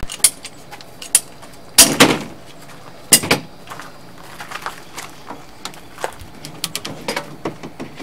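PVC pipes and elbow fittings knocking and clacking together as a pipe frame is fitted together by hand. A few sharp knocks come in the first few seconds, then lighter, quicker clicks.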